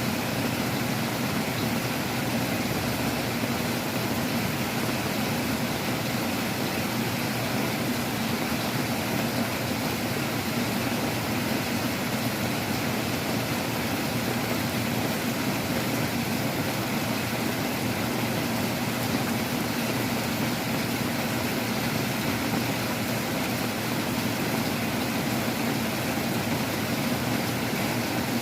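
Heavy rain pouring down in a strong wind: a steady, unbroken rushing noise.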